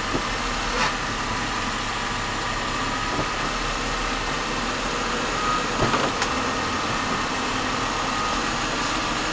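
2006 Mercedes-Benz E350's V6 engine idling, with a faint steady high-pitched squeal from around the front wheel. Two short clicks, one just under a second in and one about six seconds in.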